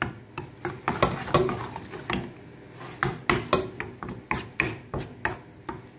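A spoon stirring a thick, wet seasoning paste in a plastic bowl: an irregular run of scrapes and taps against the bowl, about two to three a second.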